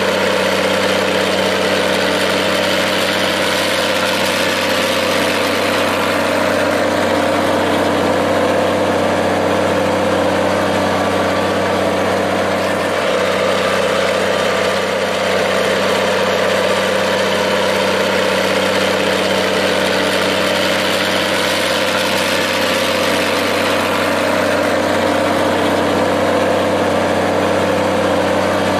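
Minneapolis-Moline tractor engine idling steadily.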